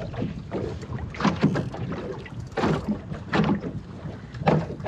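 Small waves slapping against the plywood hull of a small sailing dinghy, irregularly about once a second, over a steady rumble of wind on the microphone.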